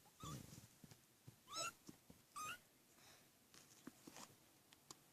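Kitten mewing faintly: two short, high-pitched mews about a second apart, with a softer lower sound near the start and a few small taps.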